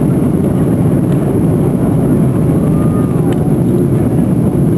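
Steady low rumble of airflow and engines, heard inside the cabin of an Airbus A340-300 airliner descending on approach.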